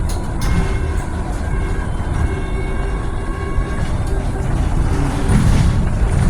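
Electric city bus's traction motor whining, several steady tones over the low rumble of the bus in motion, heard from inside the cabin: an abnormal motor noise. The noise swells a little near the end.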